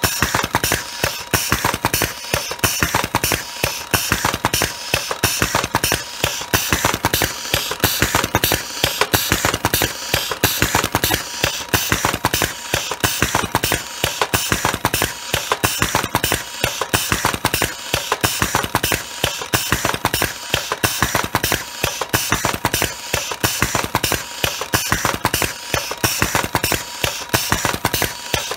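Cobra electric cigarette-tube filling machine running continuously, a fast, even mechanical clatter as it cycles through stuffing tobacco into tubes and ejecting finished cigarettes, over a faint steady whine.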